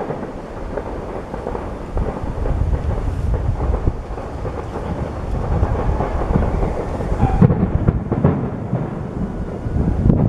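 Aerial fireworks shells bursting in quick succession, their booms running together into a continuous low rumble that grows louder about two seconds in.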